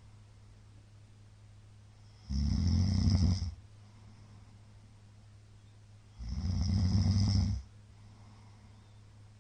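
A middle-aged man snoring loudly in deep sleep after heavy drinking: two long snores about four seconds apart, each lasting over a second, with quiet stretches between.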